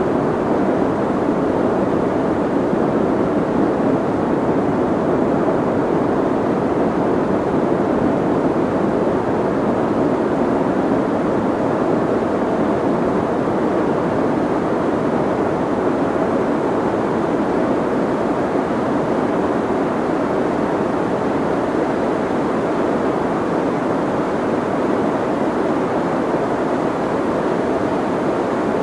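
Steady soft white noise, a constant even hiss weighted toward the low-middle and muffled in the highs, with no changes.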